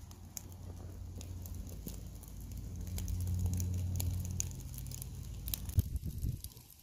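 Burning charcoal and wood chunks crackling and popping with scattered sharp snaps, over a low steady rumble that swells about three seconds in and then eases.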